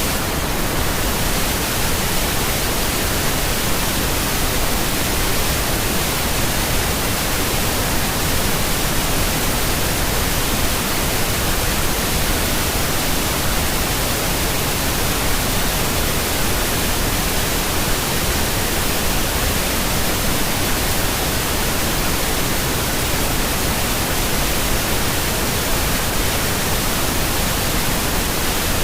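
Pink noise: a steady, even hiss spread across the whole range of pitch, unchanging throughout.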